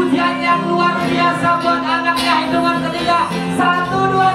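Music: a song with singing and guitar accompaniment, playing steadily.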